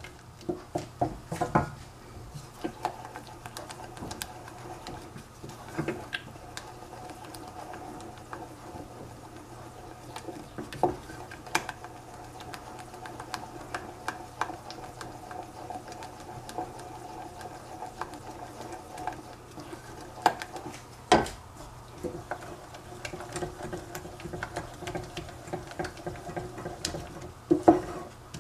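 Wooden spoon and spatula stirring melting chocolate in stainless steel saucepans, scraping and clicking against the pans, with a few louder knocks on the rims. A steady hum runs underneath.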